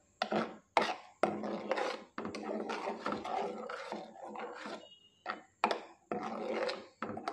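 A steel ladle stirring and scraping a thick tomato masala in a frying pan, with irregular sharp knocks of the ladle against the pan between stretches of scraping.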